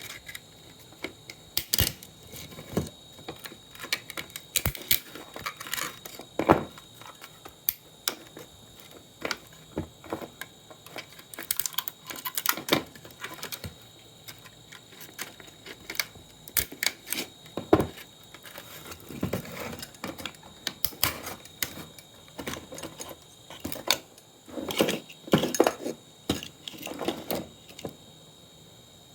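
Irregular clicks, taps and clatter of small hard plastic and metal parts being handled and knocked about while an old monitor is taken apart, with a few busier bursts of clatter.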